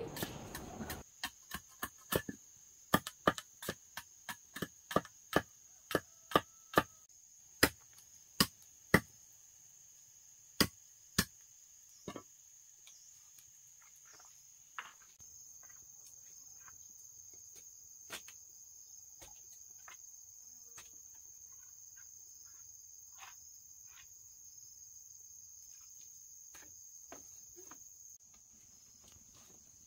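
A run of sharp, loud knocking blows, one or two a second for about the first twelve seconds, then only a few scattered fainter knocks. Under them is a steady high-pitched insect drone.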